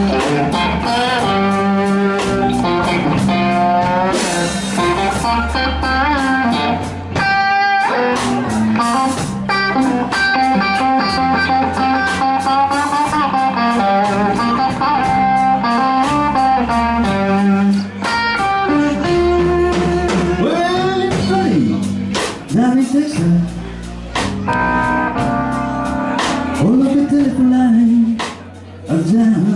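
A live blues band plays a slow blues. A Fender Stratocaster through a valve amp carries an instrumental lead full of bent notes, over electric bass and drums.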